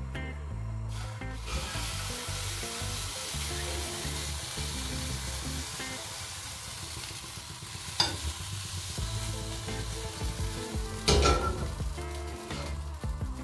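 Sizzling in a hot stainless steel frying pan as pancake batter is ladled in and cooks, with two sharp metal clinks of the ladle against the pan in the second half.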